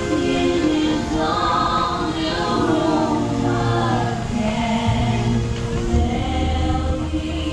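A group of voices singing together with music, the held notes overlapping in harmony; a low steady tone joins underneath about three seconds in.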